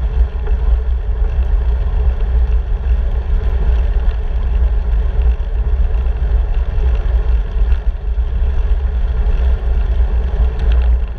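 Steady wind buffeting a handlebar-mounted camera's microphone on a moving bicycle, a heavy low rumble with an even rush of air and road noise over it.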